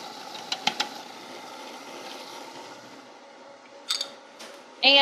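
Food processor motor running steadily, blending a chickpea and tahini mix. A few sharp clicks under a second in as garlic drops down the feed tube, and a short clatter about four seconds in.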